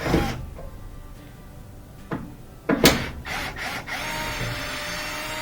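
A few knocks and clatters of a tool against metal, then a cordless drill-driver runs steadily for about two seconds near the end, backing a panel screw out of the washer.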